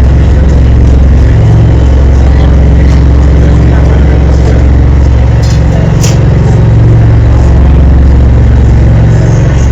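Motor of a dolphin-watching tour boat running steadily, a loud low drone that does not change, with a couple of faint clicks about six seconds in.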